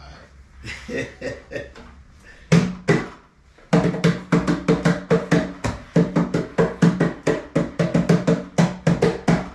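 Background music with drums: a few scattered beats, then a steady beat of about four hits a second comes in a little under four seconds in.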